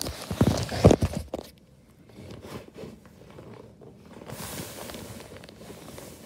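Handling noise: a few loud knocks and scuffs in the first second, then quieter rubbing and a soft scraping hiss as a cardboard product box is picked up and handled close to the phone's microphone.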